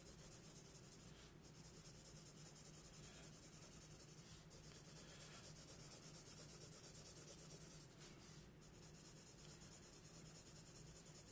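Faint scratching of a marker tip drawn over paper in quick, light hatching strokes, several a second.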